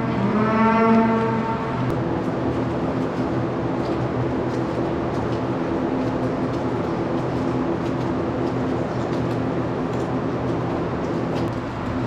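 A Holstein cow moos once, for about two seconds, at the start. After it a steady machine hum with several pitches carries on, with faint scattered ticks.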